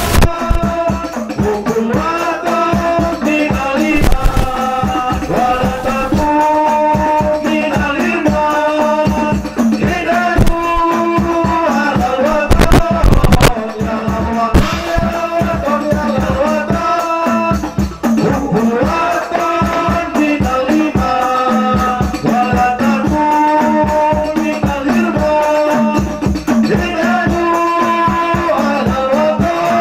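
A man singing a chant-like Arabic devotional song into a microphone, over a steady rhythm of hand-beaten frame drums (rebana/terbang) played by a hadrah ensemble.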